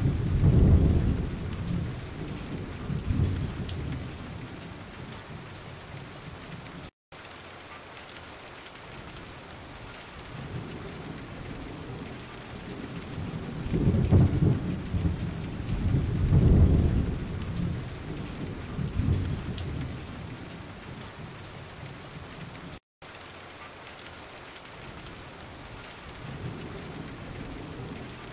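Swollen, muddy river in flood rushing steadily, with gusts of wind buffeting the microphone in irregular low rumbles, strongest about a second in and again around the middle. The sound drops out for an instant twice where the recording is cut.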